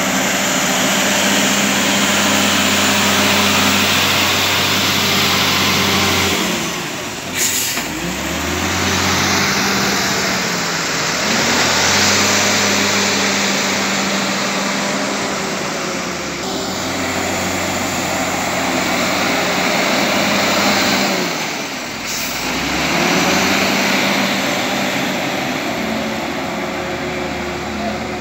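Wheel loader's diesel engine working under load as it pushes and spreads soil with its bucket. The engine note drops and revs back up twice, about a quarter of the way in and again about three-quarters through, with a short knock at the first dip.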